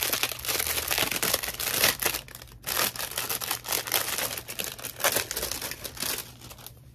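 Plastic wrapping crinkling and tearing as it is pulled off by hand, in irregular rustling bursts that thin out near the end.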